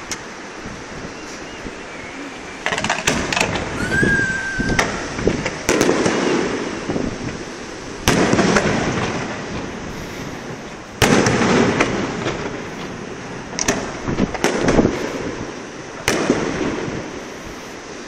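Aerial firework shells bursting, about nine loud bangs at uneven intervals of one to three seconds, starting about three seconds in, each trailing off in a long rumbling echo. A short steady whistle sounds about four seconds in.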